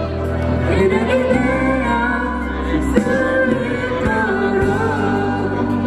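A small mixed vocal group, two men and two women, singing a ballad in harmony through microphones, with held notes over steady low bass notes.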